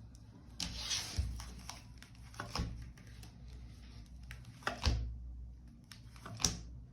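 Tarot cards being handled and laid out on a table: four short rustling, sliding sounds, about half a second in, near two and a half seconds, near five seconds and near the end.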